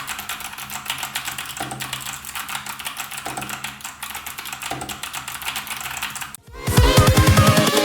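Fast typing on a Gamakay LK67 mechanical keyboard with Kailh Box switches: a dense run of crisp key clicks over faint background music. About six and a half seconds in, the typing stops and loud electronic music with heavy bass begins.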